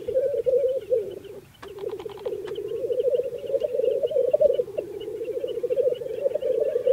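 Male black grouse lekking: several birds giving the continuous bubbling, cooing display song of the lek, a fast-pulsing low warble. There is a brief pause about a second and a half in, then a short burst of clicks.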